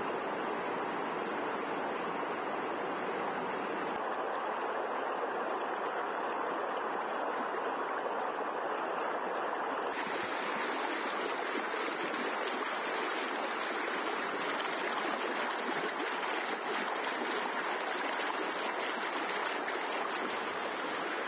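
Muddy flash-flood water rushing and pouring over a bank in a steady, unbroken rush. About halfway through it turns brighter and hissier, heard close to the churning torrent.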